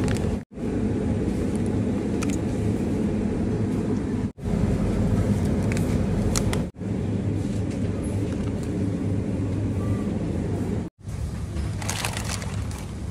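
Steady low hum of a convenience store's refrigerated display cases, with plastic food packets crinkling as a hand takes them from the shelf about six seconds in and near the end. The hum cuts out for an instant four times.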